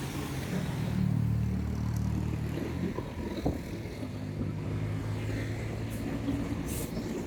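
Bus engine running: a low, steady drone that is louder for the first three seconds or so and then settles. A brief hiss comes near the end.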